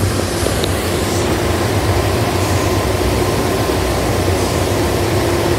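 Ryko automatic car wash machinery running steadily in the wash bay: a constant low drone with a held mid-pitched tone over an even rushing noise.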